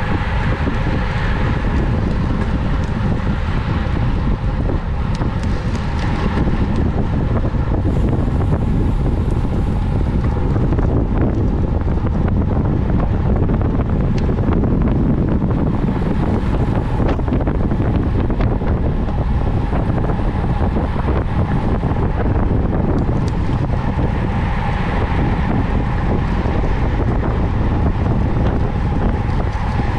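Wind rushing over the microphone of a camera on a road racing bicycle ridden at speed, a steady loud buffeting with a faint steady whine beneath.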